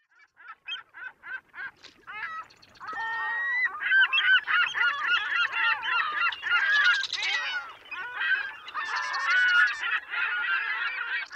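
A large flock of waterbirds calling as they take off from the water. Single calls come a few times a second at first, then build into a dense, overlapping chorus about three seconds in.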